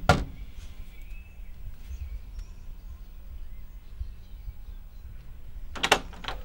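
A fist knocking on a painted wooden front door: the last rap of a series right at the start, then a quiet wait with a low hum and faint chirps, and a quick cluster of further raps near the end.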